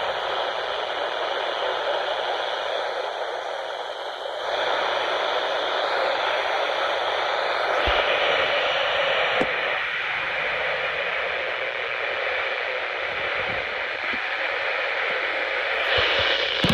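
Steady radio static hiss from a weather radio receiver with no voice on the channel. A few faint crackles come through it, and there is a stretch of louder crackling near the end.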